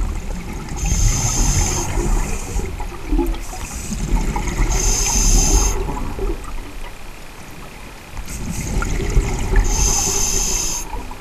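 Scuba regulator breathing underwater: three hissing inhalations about five seconds apart, with exhaled bubbles bubbling in the low range between them.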